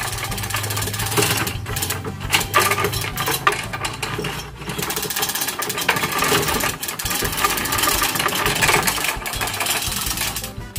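Short 3-metre manual chain hoist being hauled by hand to lift a speaker-cabinet array: steady rapid metallic clicking and chain links rattling through the hoist.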